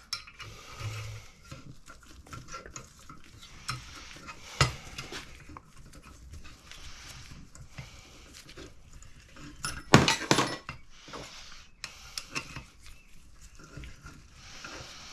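Metal clinks and knocks as a screw-type valve spring compressor is wound back off a valve spring on a cylinder head, with light scraping between them and a louder metallic clatter about ten seconds in.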